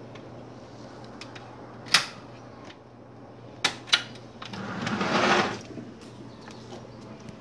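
A door's handle and latch clicking a few times, then a glass door being pushed open with a brief rush of noise about five seconds in.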